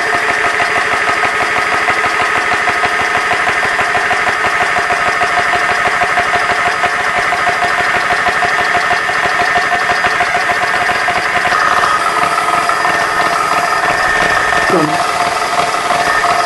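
GX-E-CS2 portable high-pressure electric air compressor running steadily under load, pumping an airgun's air cylinder up toward about 4,350 PSI near the end of the fill. About twelve seconds in its tone shifts and a higher whine joins the steady hum.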